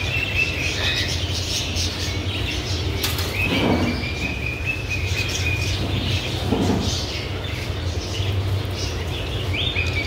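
Caged budgerigars chirping and chattering, many short calls overlapping, with one longer held whistle near the middle, over a steady low hum.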